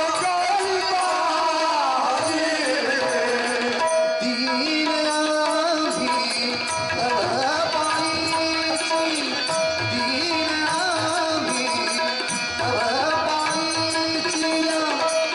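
Marathi devotional bhajan: a male lead singer sings a wavering melody to harmonium accompaniment, with tabla drumming the rhythm.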